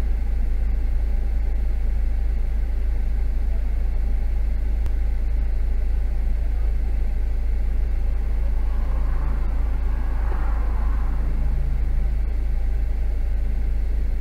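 Steady low rumble inside a stopped car's cabin. A passing vehicle on the highway swells and fades about nine to eleven seconds in.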